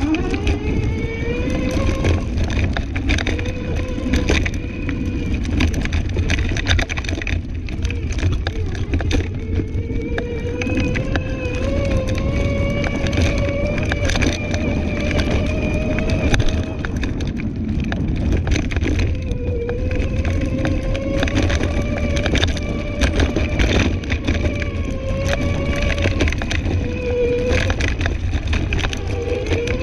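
Electric scooter ridden over a rough woodland dirt trail: the motor whines steadily, its pitch slowly rising and falling with speed, over constant clattering and knocking from the frame jolting on roots and bumps and a low rumble.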